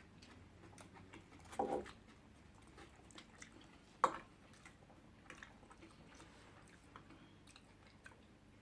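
Faint eating sounds as spaghetti is chewed: quiet chewing with small scattered clicks, a short louder sound a little under two seconds in and a single sharp click about four seconds in.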